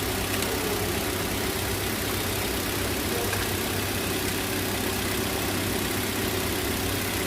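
Four-cylinder car engine idling steadily and evenly: the rough idle and misfire are gone after new ignition coils and spark plugs.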